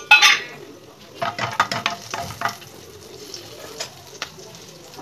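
Whole spices and cumin sizzling as they fry in hot oil in a non-stick wok, being stirred, with a run of short scraping strokes about a second in and a few more later. A loud sharp burst comes right at the start.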